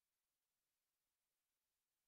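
Silence: the soundtrack is essentially empty, with only a faint even hiss.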